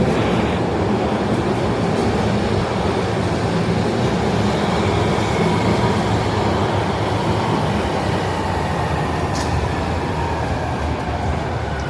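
Electric train running through the station: a steady, loud rumble of wheels and motors, with a faint whine that slowly slides in pitch in the second half.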